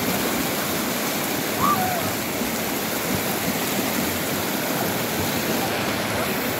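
Steady rush of fast-flowing river water with people splashing in it. A short high call rises above it about two seconds in.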